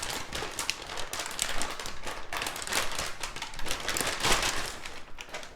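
Plastic packaging crinkling and rustling as a graphics card is handled and unwrapped, a dense run of irregular crackles.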